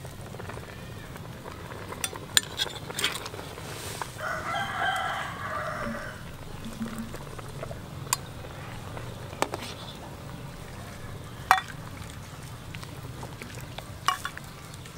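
A steel ladle clinks sharply against the wok and bowl several times while soup is scooped and served. A rooster crows once for about two seconds, a little past the middle.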